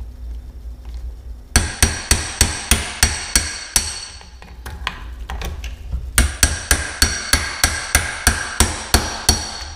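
Hammer striking a hand impact screwdriver to break loose a stuck, half-stripped screw in a 1976 25 hp Evinrude outboard's lower unit gearcase. Two runs of quick, ringing metal blows, about three or four a second, with a pause of about two seconds between them.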